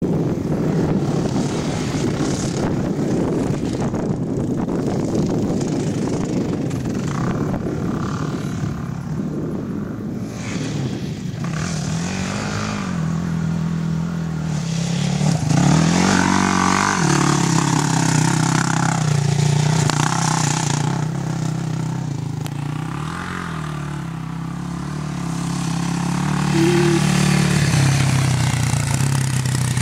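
Yamaha YFZ450 quad's single-cylinder four-stroke engine running and revving up and down, with several quick rises in revs around the middle.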